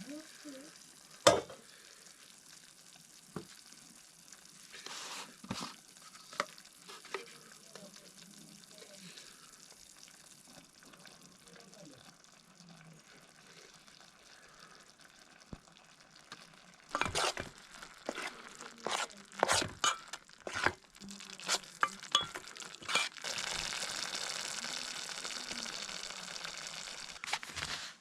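Cooking sounds: scattered single knocks and clinks of utensils, then a busy run of clattering about two-thirds through, then food sizzling steadily in a hot pan near the end.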